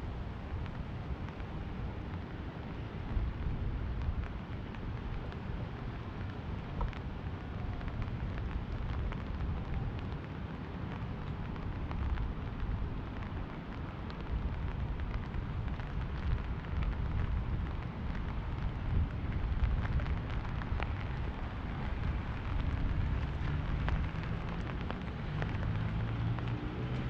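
Rain falling on an umbrella held overhead: many small drop ticks over a steady hiss and a low rumble. Near the end a low hum rises in pitch and grows louder.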